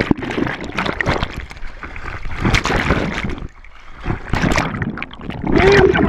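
Water splashing and sloshing around a camera held by a swimmer, switching between muffled underwater rushing and splashes at the surface as it dips in and out. Near the end a brief wavering tone rises over the water noise.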